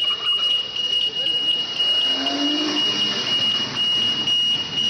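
An electronic alarm sounding one shrill, steady note that cuts out briefly a few times, with faint voices in the middle.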